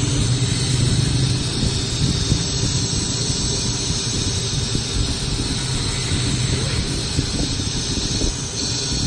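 Laser cutting machine running while it cuts a sheet of mirror acrylic: a steady hum with a hiss over it and no clear breaks.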